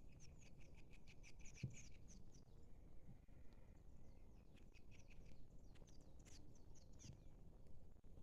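Faint bird calls: two runs of quick, high chirps, the first at the start and the second about five and a half seconds in, over a low background rumble.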